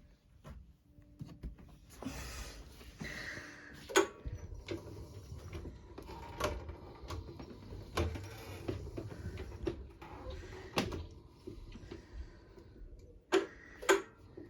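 Power wheelchair's electric drive motors running in short spells as the chair is maneuvered slowly, with a low rumble and several sharp knocks and clicks, the loudest about four seconds in and twice near the end.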